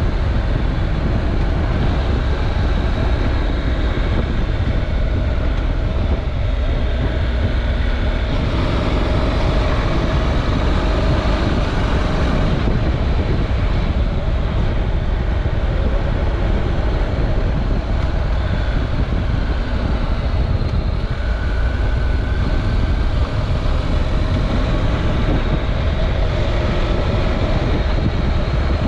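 Honda NC700X's 670 cc parallel-twin engine running at a steady cruise of about 60 km/h, heard through heavy wind rush on the onboard camera's microphone.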